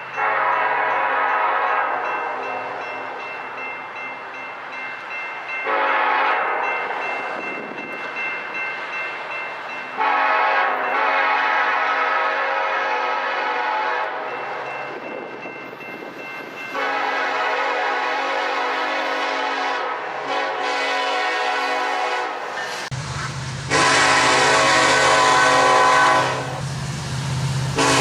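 Locomotive air horn sounding a series of long blasts, each a chord of several notes. From a little past the middle the train's low rumble comes in underneath, and the loudest blast comes near the end.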